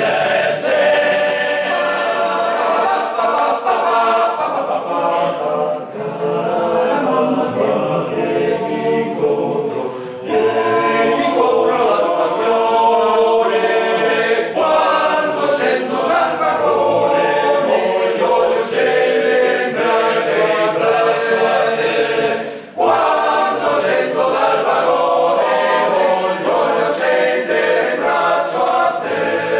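Alpini men's choir singing a cappella, with short breaks between phrases about ten seconds in and again about two-thirds of the way through.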